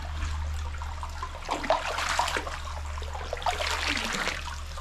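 Hot spring water running and trickling into an open-air bath, a free-flowing (kake-nagashi) hot spring, with two louder splashy swells, about a second and a half in and again near the end, over a steady low hum.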